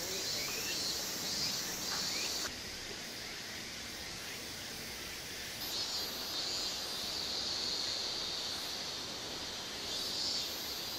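Outdoor ambience with insects chirping in a steady high band and a few faint bird calls near the start. The insect sound cuts off suddenly about two and a half seconds in and comes back about three seconds later.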